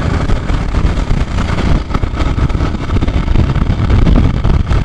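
Suzuki Gixxer motorcycle being ridden on the road: its engine running under way with a loud, steady low rumble of wind and road noise.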